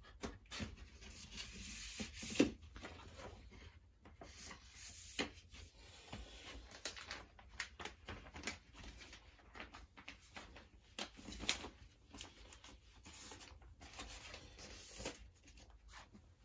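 Paper and cardboard rustling and sliding, with small irregular taps and clicks, as a vinyl record and a folded poster are put back into their paper inner sleeve and cardboard album jacket.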